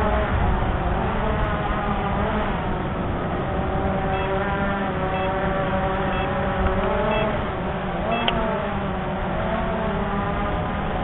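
CX-20 quadcopter's brushless motors and propellers whining in flight, the pitch wavering up and down as the motors keep adjusting, over a steady low rumble.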